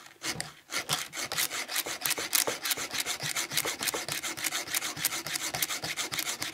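Round needle file rasping back and forth on a cutter tooth of a mini cordless chainsaw's steel chain, with quick even strokes several times a second: the chain being sharpened by hand.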